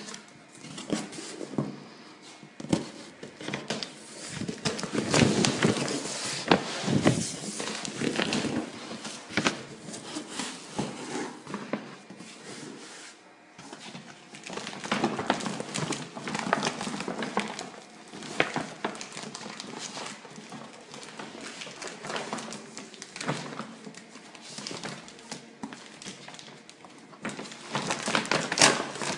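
A cardboard carton being handled and opened by hand: irregular scraping, rustling and sharp taps of cardboard flaps and packing tape, busiest about five seconds in and again near the end.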